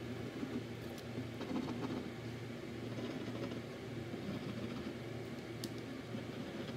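Steady low mechanical hum that pulses slowly, a little under once a second, with a few faint clicks from wooden craft sticks and a glue tube being handled on a table.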